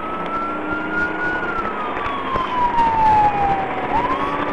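Police car siren wailing over road and engine noise. It climbs gently, slides slowly down over about three seconds, then sweeps quickly back up near the end.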